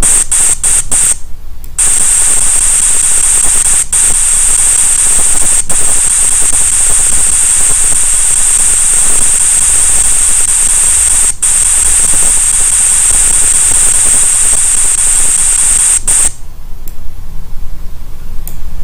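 Steady electronic hiss from a CNC lathe simulator's axis-travel sound effect while the X axis is jogged. It starts with a few short blips, runs steadily with a couple of brief dropouts, and cuts off about 16 seconds in when the axis stops.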